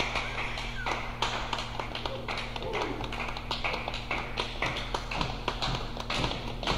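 Irregular light taps and knocks, a few a second, over a steady electrical hum.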